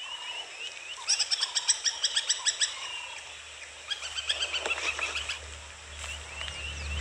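High-pitched wild animal calls: a rapid run of short chirping calls begins about a second in and lasts nearly two seconds, with scattered calls after it. A low rumble grows near the end.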